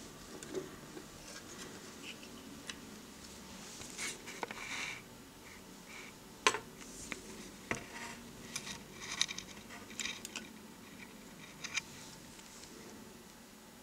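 Hands handling a computer motherboard: scattered light clicks, taps and scrapes, with a brief scrape about four seconds in and the sharpest click about six and a half seconds in.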